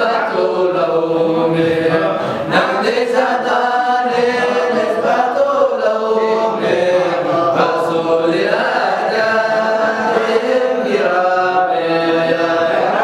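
Group of young men chanting an Islamic dhikr in unison without instruments, one lead voice singing into a microphone with the others joining.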